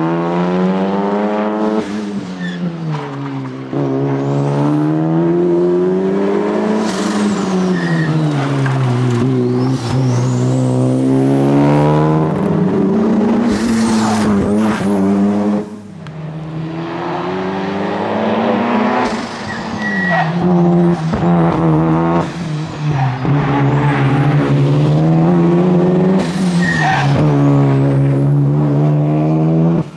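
1995 Mazda RX-7 SP's twin-rotor rotary engine driven hard. The revs climb and fall back again and again through gear changes and lifts, with a brief lift about halfway through.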